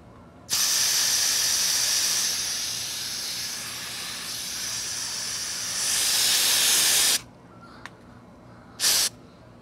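Wasp and hornet insecticide aerosol can spraying with a loud hiss in one long blast of about six and a half seconds, then a short second burst near the end.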